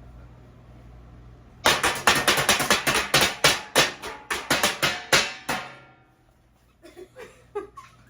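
Metal pots and pans banged together in a rapid run of clanging strikes, about five a second, each with a short ring, starting a couple of seconds in and stopping after about four seconds.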